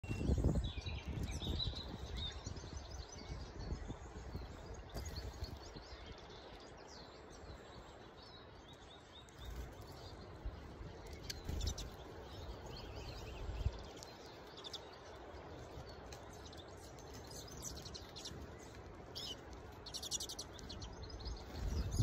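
Small finches at a seed feeder giving scattered short high chirps and twitters, with a quick run of chirps near the end. Low rumbling noise comes and goes underneath, loudest at the very start.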